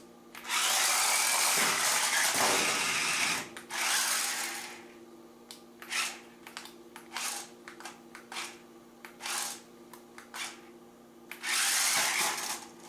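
Small electric drive motors of a double-wheel 360 stunt RC car whirring in bursts as it is driven on the floor: one long run of about three seconds, a shorter one, a string of quick blips, then another run of about a second near the end.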